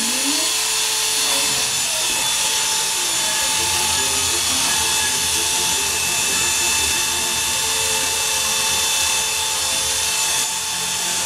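Corded electric hair clippers running with a steady, high buzzing hum as they shave short stubble off a scalp.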